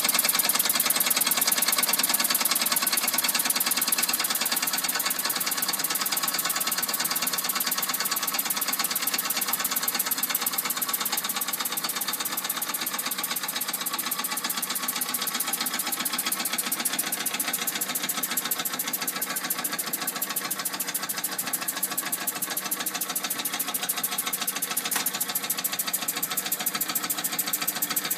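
Toy live-steam engine running steadily, its flywheel spinning: a fast, even beat of exhaust steam over a steady hiss.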